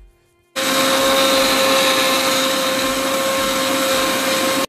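Electric mixer grinder running at full speed, grinding masala, with a steady high whine over its motor noise. It starts suddenly about half a second in and cuts off abruptly near the end.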